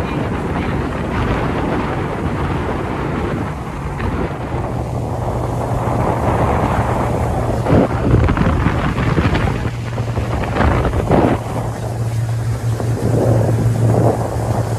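Motorboat running at speed: a steady low engine hum under heavy wind buffeting on the microphone and the rush of water past the hull, with a few louder gusts.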